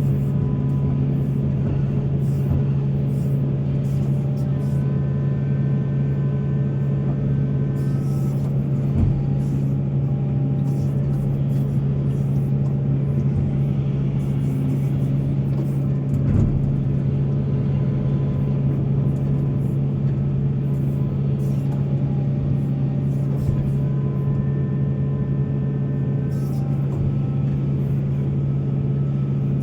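Heavy diesel engine of an excavator loading coal, running at a steady speed, with a dull knock about nine seconds in and another around sixteen seconds in.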